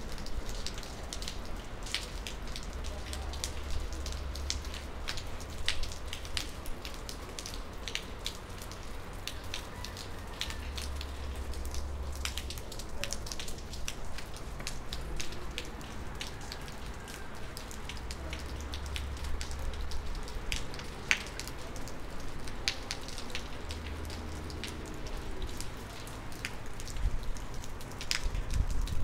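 Rain falling steadily, a constant hiss dotted with many sharp taps of drops landing close by.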